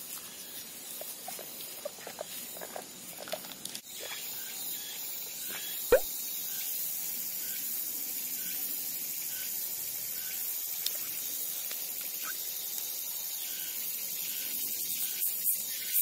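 Amazon parrot nibbling and tearing at grass roots and plant stems with its beak: small crunches and clicks, with one sharper snap about six seconds in. A steady high hiss and a faint chirp repeating about once a second run underneath.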